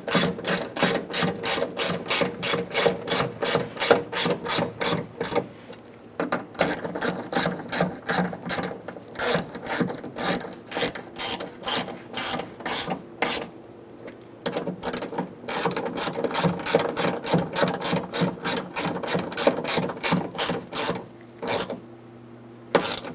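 Hand ratchet wrench clicking in steady back-strokes, about three clicks a second, as it snugs down the door lock actuator's mounting bolts. There are short pauses between runs.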